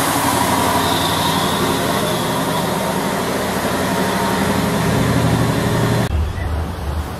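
Heavy truck's diesel engine idling close by, a steady fast chatter. About six seconds in the sound cuts to a lower, pulsing engine idle.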